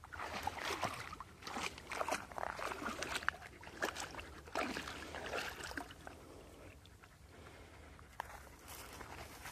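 A dog wading in a shallow muddy puddle, the water sloshing and splashing irregularly around its legs; busiest in the first half, then quieter with only a few soft splashes.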